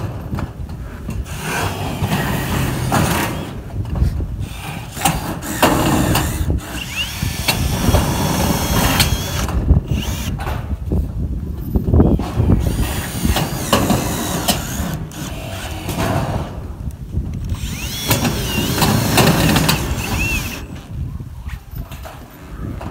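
Milwaukee M18 cordless drill driving self-drilling screws through corrugated metal roofing sheets, in a series of bursts a few seconds long with short pauses between screws.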